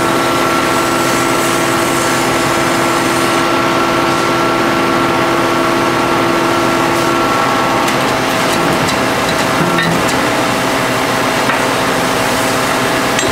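Hydraulic power pack running steadily to drive a hydraulic H-beam pile extractor, a loud machine drone with a steady whine. About 7 to 8 seconds in, part of the whine drops away as the hydraulic load changes, and a few light knocks follow.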